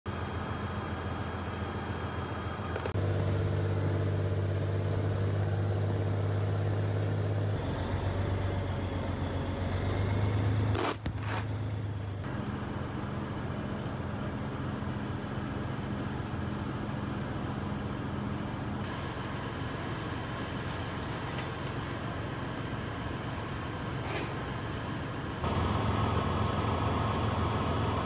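Heavy armoured military vehicles, D9R armoured bulldozers and tanks, with their diesel engines running in a steady low drone. The sound is spliced from several clips, so the engine tone and loudness change abruptly every few seconds.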